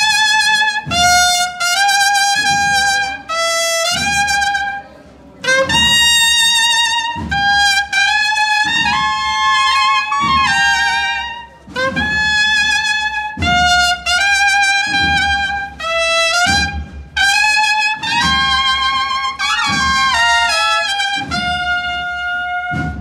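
A Spanish cornet-and-drum marching band (banda de cornetas y tambores) playing a processional march. The massed cornets play loud, high phrases with short breaks between them, and drum beats sound underneath.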